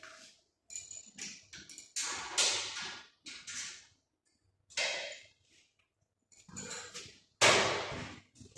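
Sheet-steel storage cabinet clanking and rattling in short, irregular knocks as it is handled at its base, with a louder metal clatter near the end as its doors are swung shut.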